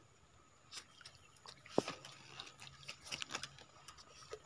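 Faint, scattered small clicks and taps, one sharper click about two seconds in, from handling a bamboo-poled scoop net.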